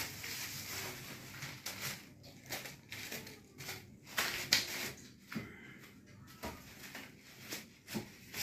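Plastic packing wrap and a cloth rod cover rustling as a fishing rod is unwrapped and handled, in irregular bursts with a few sharper clicks.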